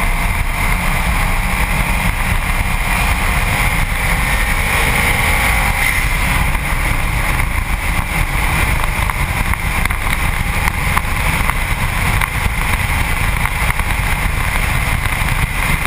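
Subaru WRX STi at track speed heard from a front-bumper camera: steady wind buffeting with tyre and road noise, and the engine faint underneath, rising in pitch a few seconds in.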